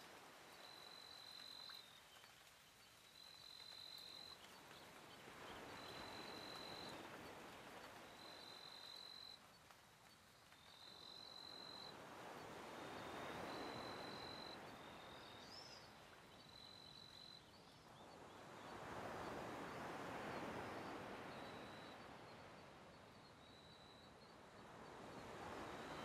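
Faint outdoor ambience: an insect calling at a high pitch in repeated trills about a second long, one every two seconds or so. Under it is a soft hiss that swells and fades three times.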